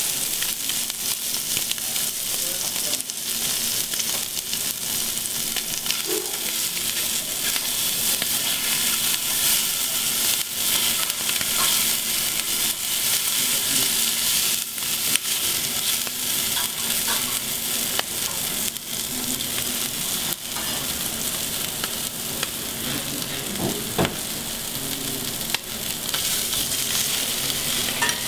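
Seafood frying on a hot stainless-steel flat-top griddle: a steady sizzle, with a few light taps and scrapes of a metal spoon on the griddle. A faint steady hum lies underneath.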